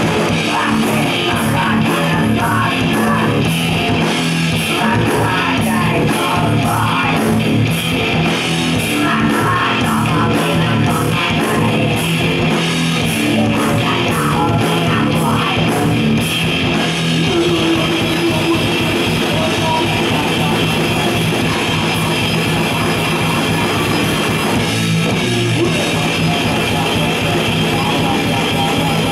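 Live rock band playing loud: electric guitars, bass and a drum kit, with a vocalist singing into a microphone. Rapid, evenly spaced drum strokes drive the first half; they give way to a smoother stretch of the song after about 17 seconds.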